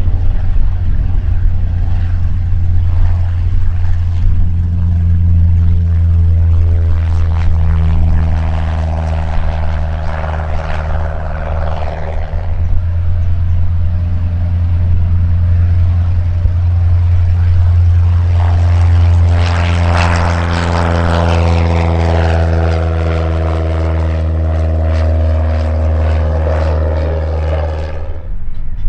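Light single-engine propeller planes (high-wing Cessnas) at take-off power: the piston-engine and propeller drone swells as one plane passes about five to twelve seconds in, then swells again for a second take-off from about eighteen seconds, peaking near twenty seconds. A steady low rumble runs underneath.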